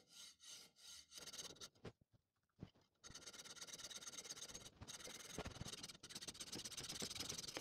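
Hacksaw blade cutting through a threaded metal pipe cap clamped in a vise, about three strokes a second. After a short pause, a dense, fast rasping chatter of the same sawing played back sped up.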